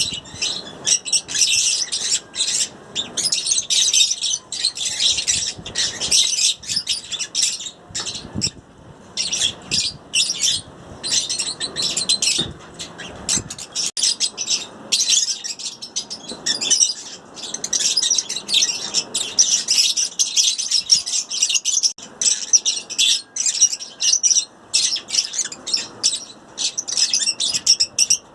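Several pet lovebirds chattering, a dense run of rapid high-pitched chirps and squawks with only brief lulls.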